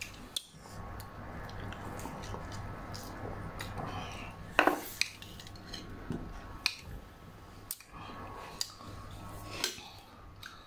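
Scattered clinks and taps of a spoon and chicken bones on ceramic bowls, the loudest about four and a half seconds in, over a low steady hum.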